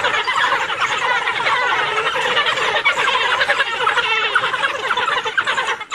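A pack of African wild dogs twittering: many short, high-pitched chirping calls overlapping in a continuous chatter.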